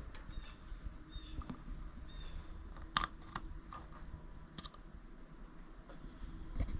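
Light ticks and sharp clicks of small hard parts being handled on a phone mount and its charging cable, with two loud clicks about three seconds in and another about a second and a half later.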